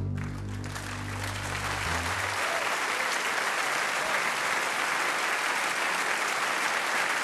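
Audience applauding steadily after a live jazz guitar duet, while the closing guitar chord rings out under the applause and stops about two seconds in.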